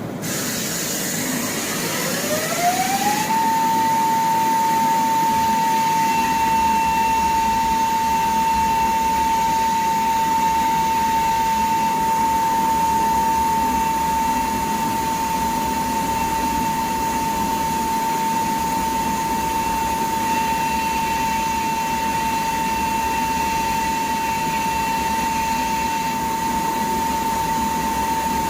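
CNC machine's spindle motor spinning up, its whine rising in pitch about two to three seconds in, then running at a steady speed with one held high whine over a constant hiss.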